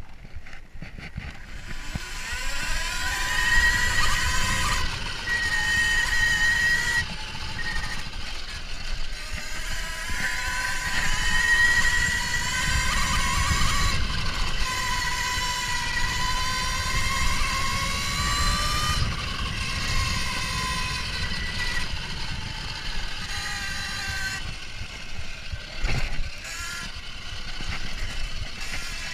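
Kuberg Ranger electric motorcycle's motor whining while it is ridden, the pitch rising as it speeds up in the first few seconds and then shifting up and down with the throttle. A low rumble from tyres and wind lies underneath, and there is a single knock near the end.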